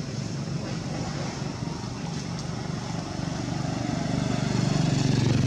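Motorbike engine running as it passes on the road, with a steady low hum that grows louder near the end as an engine comes closer.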